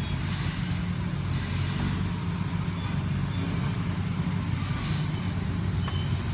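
Steady low drone of an idling motor vehicle engine, with one faint click near the end.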